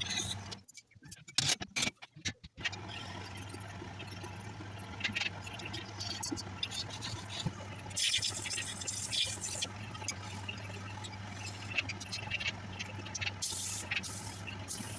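Wood lathe motor humming steadily while a turning tool scrapes and cuts the spinning wood, with louder stretches of scraping about eight seconds in and again near the end. The first couple of seconds are choppy and broken up.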